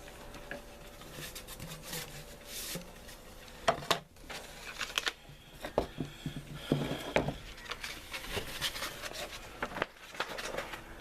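Irregular handling noises: scattered knocks and clicks with rubbing and rustling, as objects are moved about and picked up.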